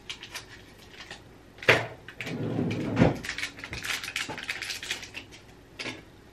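A pregnancy test's wrapper being torn open and crinkled by hand. There is a sharp rip about a second and a half in and another about three seconds in, with crackling between them, and a last crinkle near the end.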